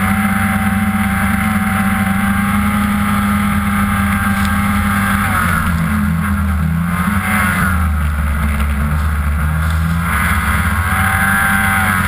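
Ski-Doo MX Z 500SS snowmobile's two-stroke engine running hard at trail speed. The engine note holds steady, then dips and rises again from about halfway as the throttle changes.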